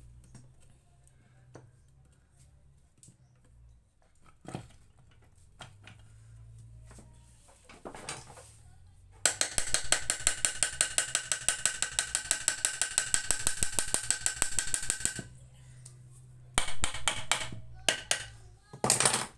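Ratchet wrench clicking rapidly and evenly for about six seconds with a metallic ring as a bolt in a Hero motorcycle engine's gearbox is worked loose. The clicking stops abruptly and comes back in two shorter bursts near the end.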